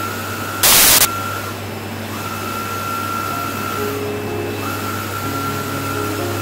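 Flatbed printer running: a steady low hum under a high motor whine that breaks off and resumes every couple of seconds as the print carriage makes its passes, with lower stepping motor tones joining later. About half a second in comes a brief, very loud burst of hiss.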